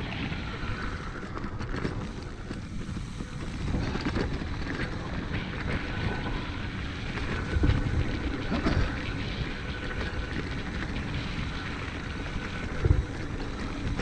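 Mountain bike descending a dirt forest singletrack: a steady rush of wind on the microphone, with tyres rolling on the dirt and the bike rattling over the bumps. There are a few heavier thumps from hits in the second half.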